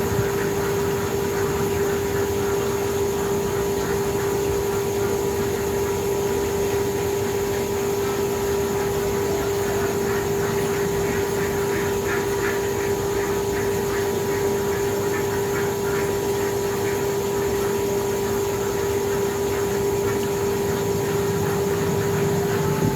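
Motor-driven grinding machine running steadily, with a constant mid-pitched hum and a fainter higher whine over a noisy mechanical rush; it cuts off at the very end.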